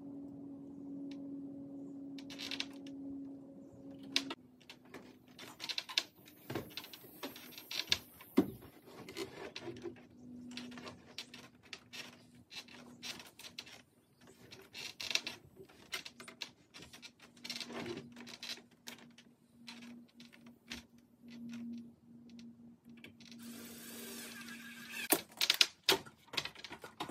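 Scattered knocks, taps and scrapes of lumber being handled and fitted on a wooden rafter frame, over a steady low hum. Near the end comes a louder stretch of rustling with sharp clicks.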